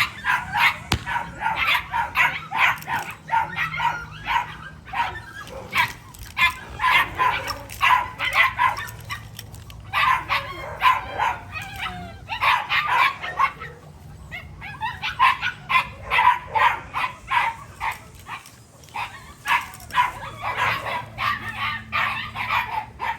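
American Pit Bull Terriers barking and yipping in quick runs of several barks a second, with short pauses between the runs, over a faint low hum.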